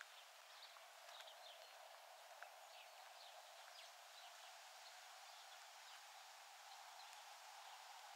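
Faint, scattered chirps of small birds, many short calls that drop in pitch, over a steady outdoor hiss.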